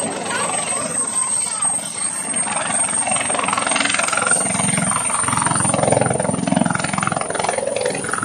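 Military utility helicopter running on its pad, rotor chopping under a steady high turbine whine that climbs slightly in pitch. It grows louder through the second half as it powers up for lift-off.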